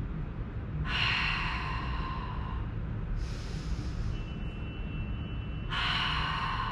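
A woman's paced breathing in the Pilates Hundred: loud rushing breaths about a second in and again near the end, with a fainter breath between them.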